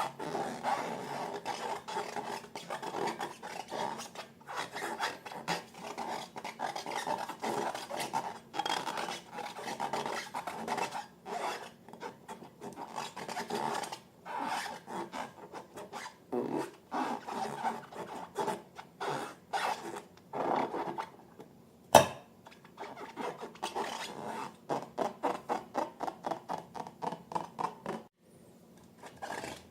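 Slime being mixed and worked, giving an irregular run of squishy rubbing and scraping strokes. There is one sharp click about 22 seconds in, and the strokes fall into a quicker, even rhythm of about three a second toward the end.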